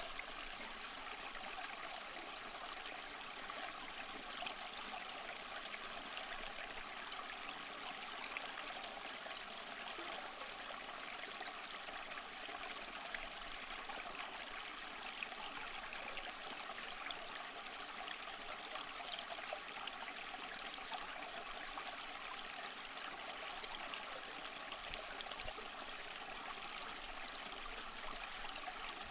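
Small stream of water running and trickling, a steady even rush with a light patter of splashes.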